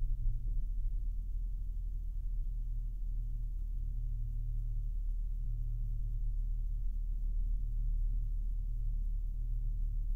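Chevy SS's 6.2-litre V8 idling, a steady low hum heard from inside the cabin.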